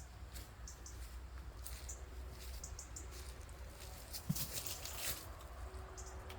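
Light scattered rustling and small crackles of dry leaves and twigs on a forest floor, with one low thump about four seconds in, over a steady low rumble.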